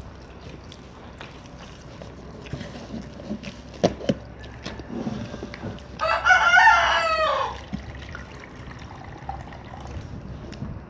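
A rooster crowing once, a loud call of about a second and a half that sags in pitch at its end. A couple of sharp knocks come a little before it.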